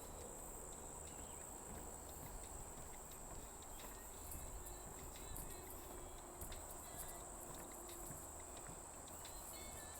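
Faint outdoor nature ambience: a steady high-pitched insect drone, with scattered short clicks and small chirps over a low rumble.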